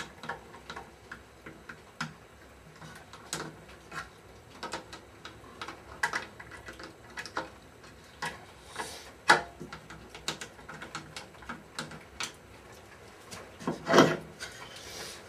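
Irregular light knocks and clicks of a wooden bowl and its lathe back plate being handled and taken off the lathe, with a sharper knock about nine seconds in and another near the end.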